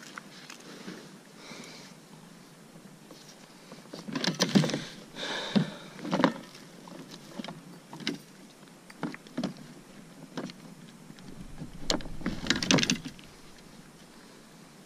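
Irregular knocks, clicks and rustling of fishing gear being handled aboard a plastic kayak: landing net, rod and reel bumping the hull. The louder bumps come about four seconds in and again near the end.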